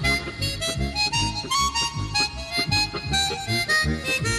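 Lively soundtrack music with a steady low beat about two to three times a second under a quick, bright melody.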